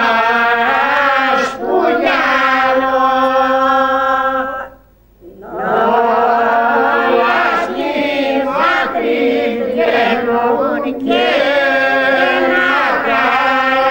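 A group of voices singing a slow song in long held notes, breaking off briefly about five seconds in for a breath before carrying on.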